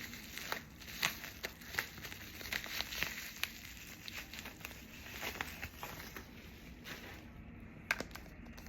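Packaging rustling and crinkling, with irregular small clicks and taps, as the next beauty product is handled and unwrapped.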